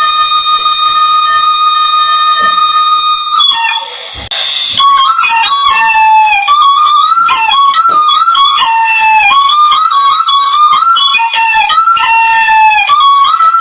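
Hmong raj (bamboo flute) playing: one long held note, then after a short break about four seconds in, a melody of short notes that bend and slide in pitch.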